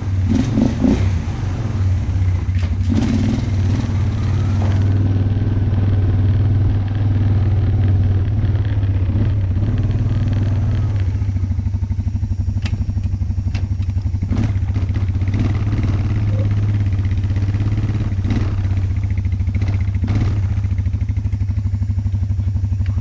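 Suzuki ATV engine running steadily at an even pitch, warming up just after a cold start while the quad is ridden slowly. A few sharp clicks and knocks sound over the engine.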